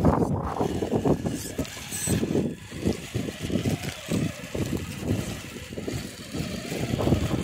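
Wind buffeting the microphone in irregular gusts while a Traxxas TRX-4 RC crawler drives over gravelly dirt. A faint steady whine comes from its electric motor.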